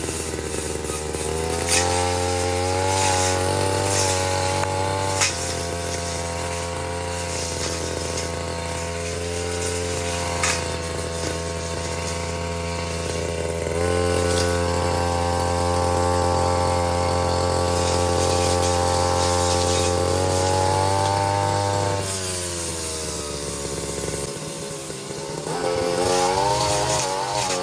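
Petrol brushcutter engine running at high revs, its pitch wavering as the throttle and the cutting load change, with a few sharp ticks. Near the end the revs drop for a couple of seconds, then climb again.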